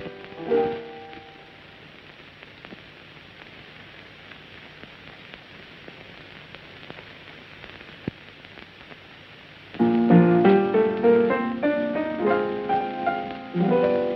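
Piano played in fits and starts: a few chords, a pause of several seconds, then a short run of chords and melody, a song being worked out at the keyboard. A steady hiss of an old film soundtrack runs underneath.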